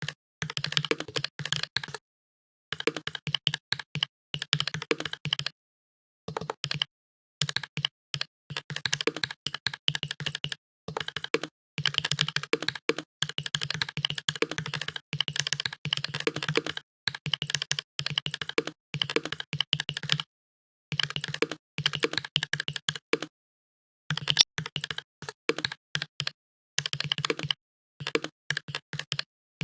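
Fast typing on a computer keyboard: keystrokes clatter in quick runs broken every few seconds by short pauses.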